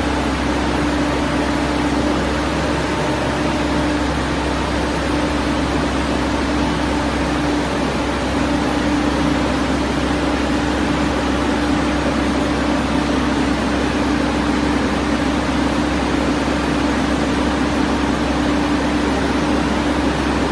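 Diesel engine of a Sanrock R86 hydraulic DTH surface drill rig, a Yuchai 58 kW unit, running steadily with a constant hum while the hydraulics move the drill boom.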